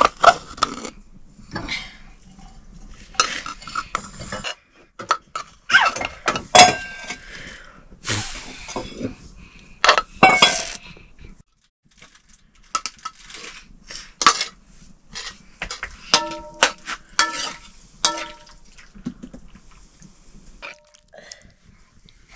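Cooking pots and utensils clattering and clinking in irregular knocks. A few strikes near the end ring out with a clear tone, like struck metal.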